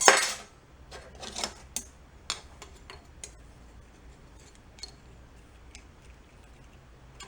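Small metal engine parts clinking and tapping as they are handled and test-fitted, with a louder clatter at the start and scattered clicks after. A shop fan hums steadily underneath.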